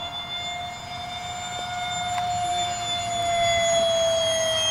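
The 70 mm five-blade electric ducted fan of a Wings Maker J-10B RC jet whines steadily in flight. It grows louder over the later seconds as the jet passes, and its pitch eases down slightly near the end.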